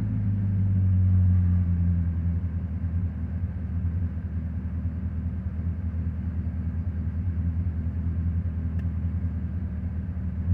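BMW M60B40 4.0-litre V8 idling steadily after a blip of the throttle, its level easing slightly over the first few seconds. The owner questions whether a vacuum leak is making it slow to come back to idle.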